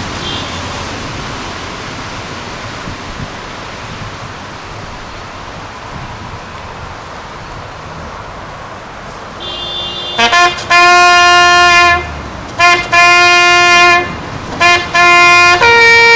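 Steady outdoor hush with wind on the microphone, then a bugle call begins about ten seconds in: several long held notes on one pitch broken by short gaps, then a higher held note near the end.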